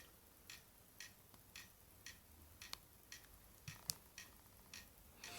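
Faint, regular ticking, about three ticks a second, in a near-silent room.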